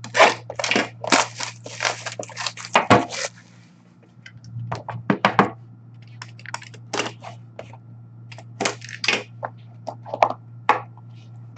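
A hockey card box and its packs being torn open and handled: a quick run of crackling and ripping packaging in the first three seconds, then scattered clicks and taps as the cards are handled. A steady low hum runs underneath.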